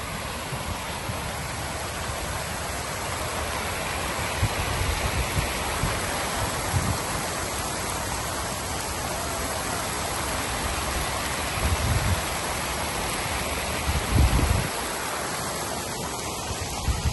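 Fountain jets splashing into a wide basin: a steady rush of falling water, with a few low thumps of wind on the microphone.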